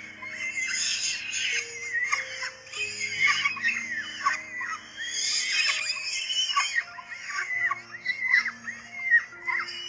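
Nestling birds calling with rapid, high, sweeping chirps that go on without a break. A music track of low, held notes plays underneath.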